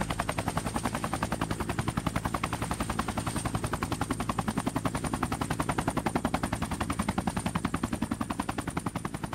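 Sustained automatic gunfire: an unbroken run of rapid shots at about ten a second, sagging in level near the end.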